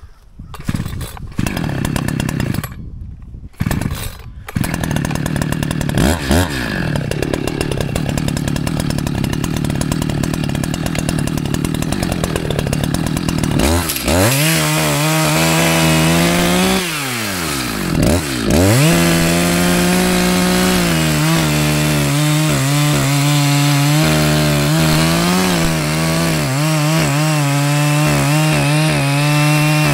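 Echo CS-620PW two-stroke chainsaw with a 27-inch bar cutting across a tree stump at its base. After a few brief breaks in the first seconds it runs steadily, then climbs to a higher, stronger note about halfway through. There the engine note dips and recovers twice under load before holding high through the cut.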